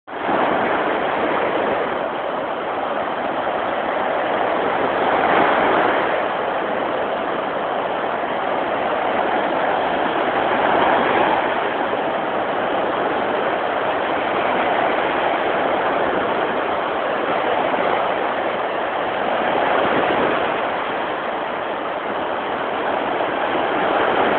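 Small Lake Michigan waves breaking and washing up a sand beach: a steady surf wash that swells every five seconds or so as each wave comes in.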